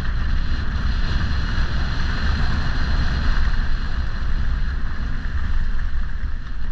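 Wind buffeting the microphone of a camera moving fast downhill, over a steady rolling, crunching rumble of tyres on a gravel and dead-leaf path.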